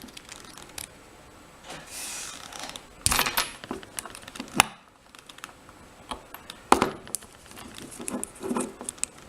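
Small metal tools scraping and clicking against a Corbin euro cylinder lock while prying the retaining clip off the back of the cylinder. Sharp clicks stand out about three seconds in, again a little later, and near seven seconds, between quieter scrapes and handling.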